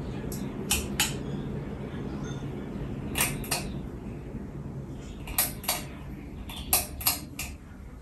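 Harbor Breeze Edenton ceiling fan running with a steady low hum, with sharp clicks, mostly in quick pairs, scattered through.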